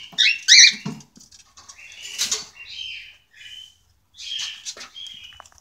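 Cockatiels giving several short, high, wavering calls, the first and loudest about half a second in, as their nest box is opened.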